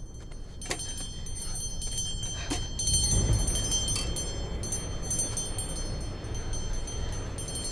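Small grave bell on a wooden post ringing in irregular jangles, its high tones hanging on between strikes: the graveyard's buried-alive signal bell, rung from below, over a low rumble that swells about halfway through.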